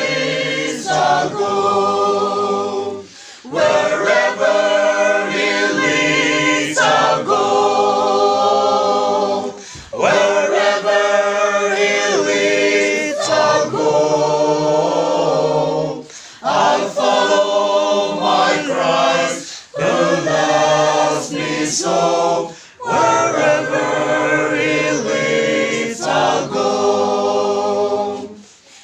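A small mixed group of men and women singing a hymn together, unaccompanied, in sung phrases separated by short breath pauses.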